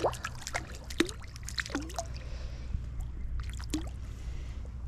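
Water splashing and dripping in short, irregular splashes and droplet plinks, over a steady low hum.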